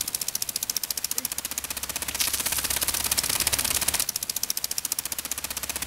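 Long-range rotor irrigation sprinkler running: its drive arm clatters against the water jet in a fast, even rattle of clicks over the hiss of the spray. The rattle is louder for a couple of seconds in the middle.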